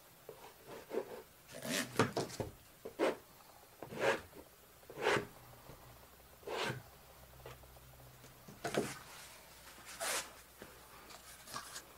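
A plastic squeegee scraping wet acrylic paint across a stretched canvas in short, separate drags, about eight strokes at irregular intervals.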